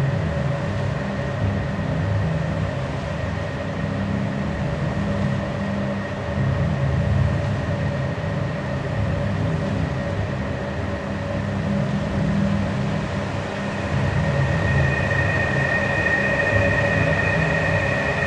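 Dark ambient dub track built from processed field recordings: a dense, fluctuating low rumble under steady held tones. A higher tone joins near the end.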